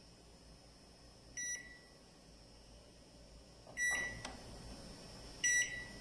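Microwave oven control panel beeping three short, high beeps as its buttons are pressed and the timer is set, with a click at the second beep.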